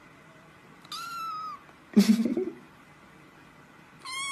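Young silver tabby kitten meowing twice: a short high meow about a second in, then a longer meow that slides slightly down in pitch, starting near the end. Between them comes a brief loud noise about two seconds in, the loudest sound here.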